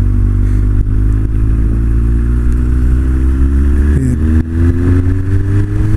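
Honda CB1300's inline-four engine pulling under acceleration, its pitch rising steadily, dropping at a gear change about four seconds in, then climbing again. Low wind rumble on the microphone runs underneath.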